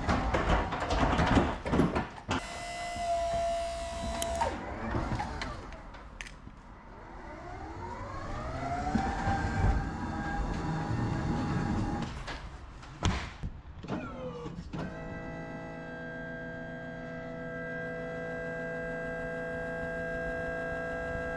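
Electric pallet truck working a loaded pallet across a box truck's floor: clattering and knocks, a short steady motor whine, then a whine that rises in pitch and levels off. From about two-thirds of the way in, a steady drone of several held tones takes over.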